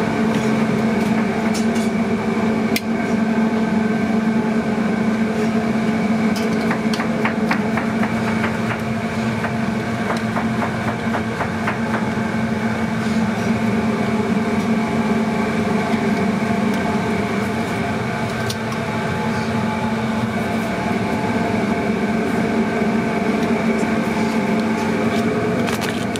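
Steady mechanical drone of restaurant kitchen equipment, with light clinks of serving utensils against metal steam-table pans, a run of them about a quarter of the way in.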